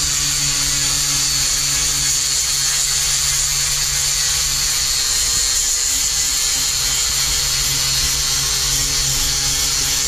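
Electric angle grinder with a sanding disc running steadily against a fibreglass boat hull: a high whine over a low hum. It is sanding the hull down to prepare it for new fibreglass.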